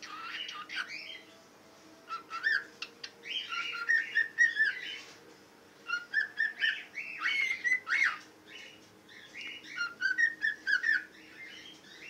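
Pied cockatiel chattering in several runs of quick, short chirps and squawks, with pitch that sweeps up and wavers, and brief pauses between the runs.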